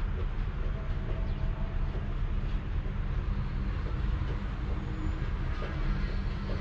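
Cat purring, a steady low rumble that flutters continuously.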